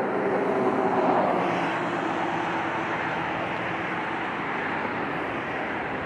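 Jet aircraft engine noise: a steady rushing roar that swells to a peak about a second in and then holds.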